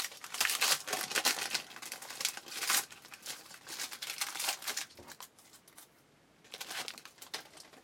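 A trading-card pack's wrapper being torn open and crinkled in the hands: dense crackling rustles for about five seconds, a brief pause, then more crinkling near the end.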